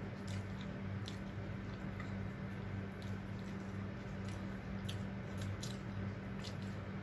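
Close-miked chewing of fried fish and rice, with scattered wet mouth smacks and clicks, over a steady low hum.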